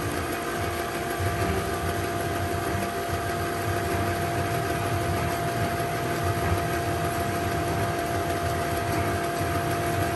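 Kodak Instamatic M95 8 mm film projector rewinding a reel: the motor runs with a steady whine over a low rumble.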